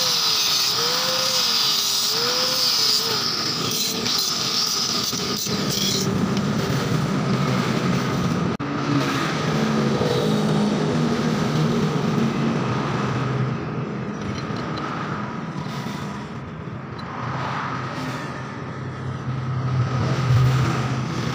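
Angle grinder with a cut-off disc cutting through a square steel bar, a high grinding whine that stops suddenly about six seconds in. After that only a steady low rumble remains.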